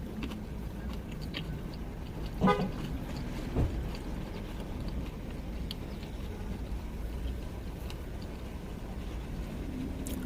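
Low steady vehicle rumble, with one short car-horn toot about two and a half seconds in and a soft thump about a second later.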